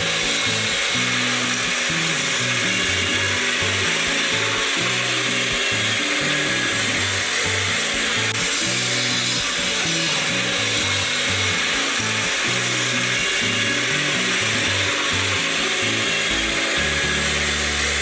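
Background music with a stepping bass line over a loud, steady rough noise; near the end the bass gives way to a steady low drone.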